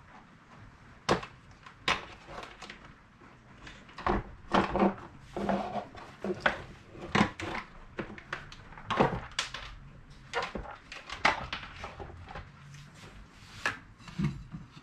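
Irregular clicks, knocks and short scrapes of plastic vacuum cleaner parts being handled while it is taken apart and its dirty fan cleaned.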